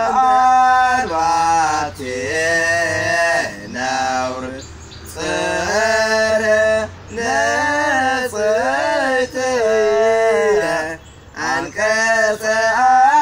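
A man's voice singing a song in long, held phrases with wavering pitch, broken by short pauses for breath every few seconds.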